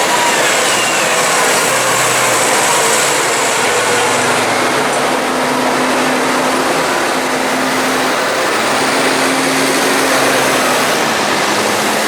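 Tractor engine running steadily and loudly under work, with a faint whine rising and falling over the top.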